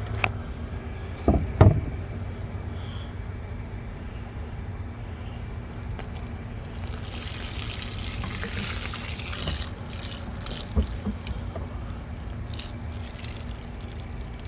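Dirty carpet-cleaning water pouring out of a container, a hissing pour that starts about seven seconds in and fades out about three seconds later. Two thumps come about a second and a half in.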